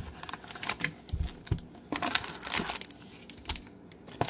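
Trading cards and their packaging being handled: irregular crinkling and light taps.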